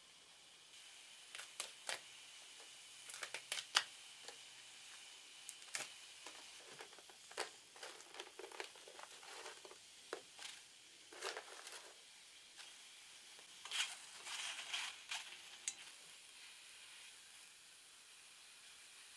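Dried squid (surume) being torn into strips by hand: irregular dry crackling tears and rasps, in clusters, that stop a few seconds before the end.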